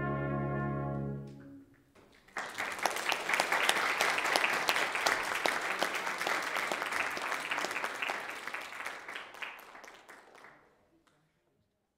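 The final held chord of a brass ensemble (trumpet, French horn and trombone) cuts off about a second in, ending the piece. After a short pause a church congregation applauds for about eight seconds, fading out near the end.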